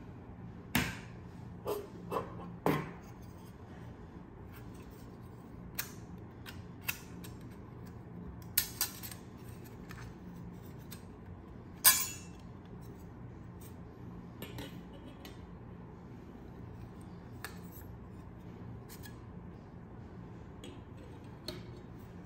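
Thin stainless steel sheet panels of a flat-pack coffee dripper being slid apart and set down, clicking and clinking against each other and the table: about a dozen separate metallic clinks, some briefly ringing, the loudest about twelve seconds in.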